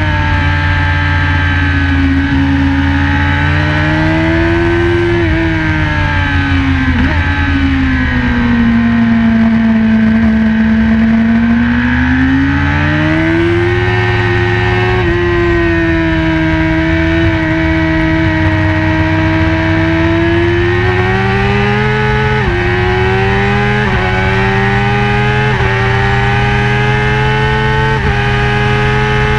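BMW S1000RR inline-four engine running hard at high revs. Its pitch sinks slowly and then climbs back, and in the last third it goes through several quick upshifts, each a sudden drop in pitch followed by a rising climb.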